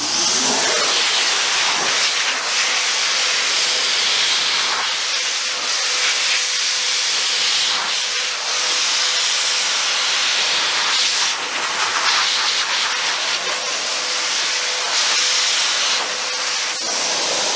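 Adam's Polishes Air Cannon car dryer blowing a steady, loud rush of air through its straight nozzle onto a wet car grille, with a faint steady hum beneath the hiss.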